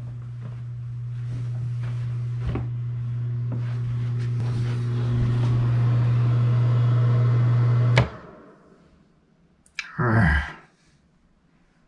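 Bathroom exhaust fan running with a steady hum and whir that grows louder; about eight seconds in a wall toggle switch clicks and the hum cuts off as the fan winds down. Near the end another switch click, then a short growl, 'grrrr'.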